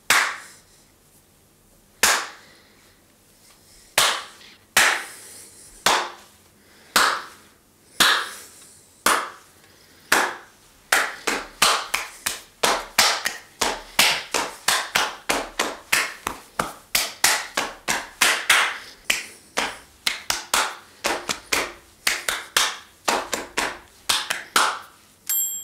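Hands clapping in a small room as a test of its echo: slow single claps about a second apart, then from about ten seconds in a quicker run of about three claps a second, each followed by a short fading tail. The claps are recorded first without, and near the end with, 1-inch foam acoustic panels on the walls.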